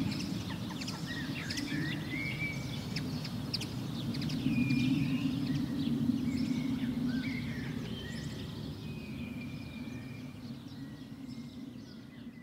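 Birds chirping with short high calls and little whistled glides over a steady low outdoor rumble, the whole fading out toward the end.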